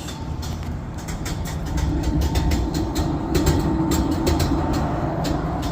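Rooftop HVAC unit running loudly: a low mechanical rumble with a steady whine and irregular rattling knocks several times a second. The noise is typical of a failing blower assembly.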